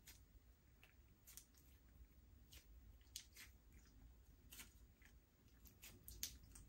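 Slime being mixed by hand: faint, irregular sticky clicks and small pops as it is worked.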